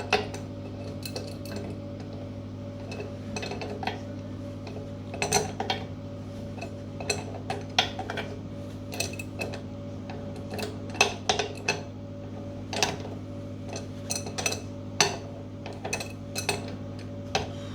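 Irregular sharp metal clinks and taps as a new tap cartridge is screwed in and tightened into the tap body, over a steady low hum.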